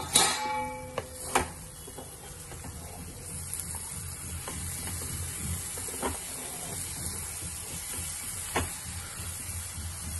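A steel plate used as a lid clanks and rings briefly at the start. Then a wooden spatula stirs and scrapes potatoes and fenugreek leaves in a steel kadhai as they sizzle steadily, with a tap every second or two.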